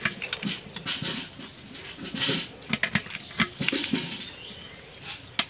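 Small crabs being cut up by hand on a bonti blade: scattered small cracks and clicks as shells and legs are snapped and sliced, with pieces dropping onto the concrete floor.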